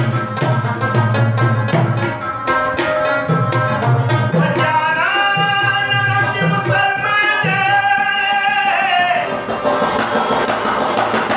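Live folk music: tabla strokes with a deep bass drum, a plucked rubab, and a male voice singing long held notes from about four and a half seconds in until about nine seconds.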